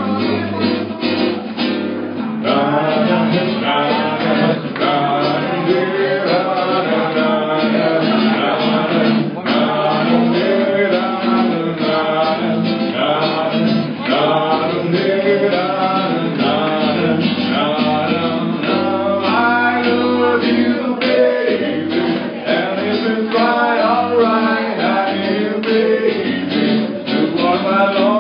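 A man singing a song while strumming an acoustic guitar, played live through microphones and a speaker.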